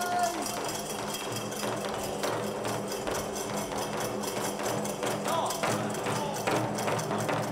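Nanbu kagura accompaniment: drum and small hand cymbals beating a fast, even rhythm, about five strokes a second. A held flute note breaks off just at the start.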